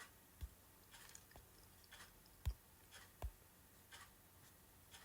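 Near silence, broken by three faint, short clicks or knocks spaced unevenly about a second apart.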